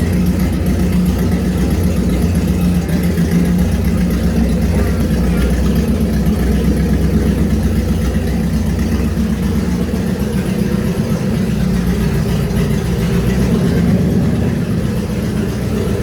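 Project boat's engine running steadily at a fast idle after start-up.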